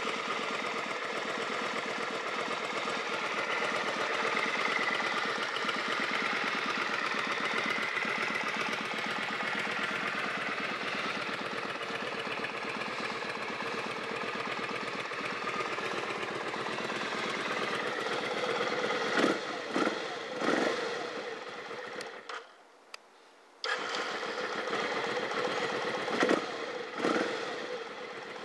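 A 1993 Kawasaki Vulcan 750's V-twin engine idling steadily. Past the middle there are a few short louder bursts, and the sound drops out for about a second and a half before the idle returns.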